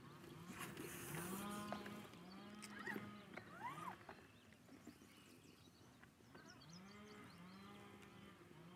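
Faint, low animal calls, each under a second long and swelling at the start, in a pair about a second in and a run of three from near the middle to the end.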